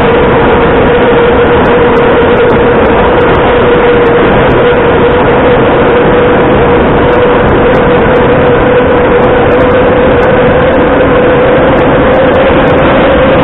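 Metro train running at speed through a tunnel, heard from inside the carriage: a loud, steady rush and rumble of wheels on rail, with a steady whine that rises slightly near the end.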